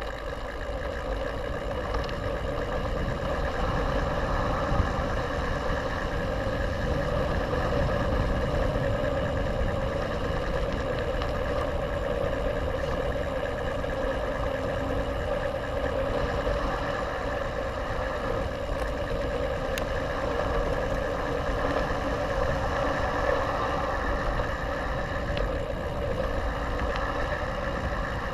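Mountain bike rolling along a dirt fire road, heard through an action camera's housing: a steady rumble of wind and tyre noise, with a few faint ticks and knocks from the trail.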